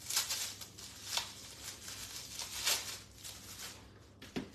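Dry, papery onion skin being peeled off by hand, crackling and rustling in several short bursts. Near the end there is a light knock as the onion is set down on a metal sheet pan.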